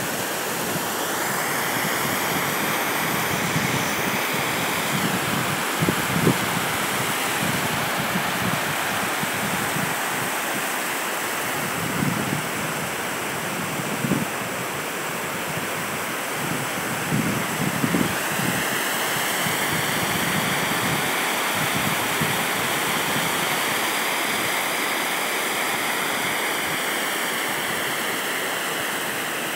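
Steady rush of water from a waterfall at the lake's edge, with occasional brief gusts of wind buffeting the microphone.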